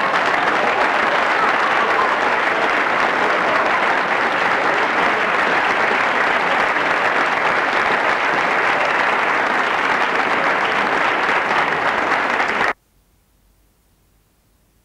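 Applause: a crowd clapping steadily and densely. It cuts off abruptly near the end, leaving near silence.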